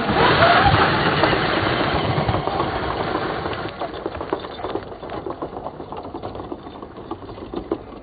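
Arrma Fury 1/10 RC short course truck pulling away over dirt and gravel: its electric motor whines up in pitch in the first second, with tyres crunching and flicking gravel. The sound fades steadily as the truck drives off.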